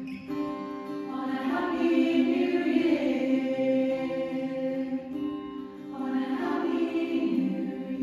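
Small choir, mostly women's voices, singing long held chords in harmony, with an acoustic guitar, swelling louder twice in a reverberant chapel.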